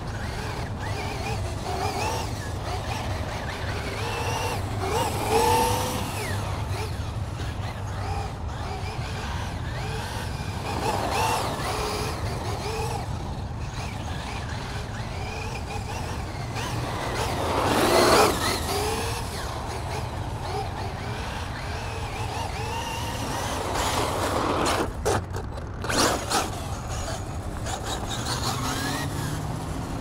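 Outdoor traffic ambience over a steady low hum, with a vehicle swelling past about eighteen seconds in and a few sharp clicks around twenty-five seconds in.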